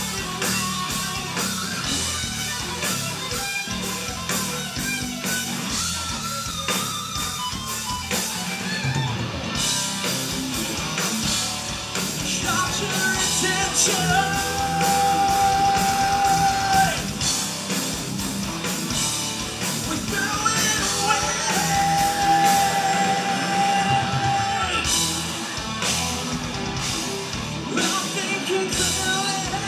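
A live rock band playing: electric guitars and a drum kit driving on without a break, with a singer who holds long notes twice in the middle stretch and again near the end.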